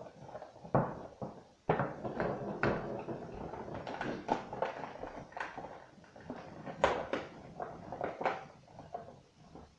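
Rustling and crinkling of clear plastic toy packaging, with irregular clicks and light knocks of small plastic toy parts and capsules being handled on a wooden table.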